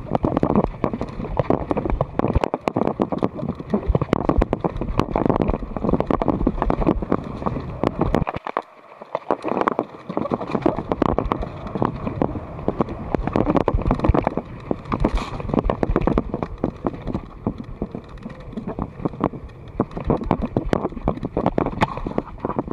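Mountain bike clattering and rattling over rough dirt singletrack, with tyres on the ground and a constant run of small knocks and clicks from the bike, easing briefly about eight and a half seconds in.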